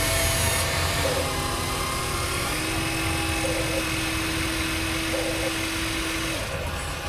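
Electric motors of 1:14-scale radio-controlled construction machines whining as they work. The pitch dips about a second in, rises again about two and a half seconds in, and the whine stops about six and a half seconds in.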